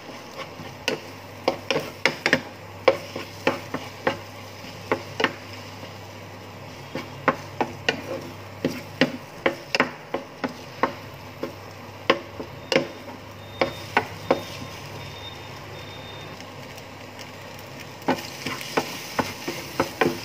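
A wooden spatula scraping and knocking against a small nonstick frying pan as leftover rice with egg and minced pork is stir-fried until dry: irregular sharp knocks, a few a second, with pauses. Under them a faint sizzle that grows stronger near the end, and a steady low hum.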